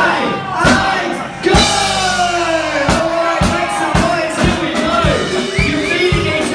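Loud music with a steady drum beat, mixed with crowd voices and shouting.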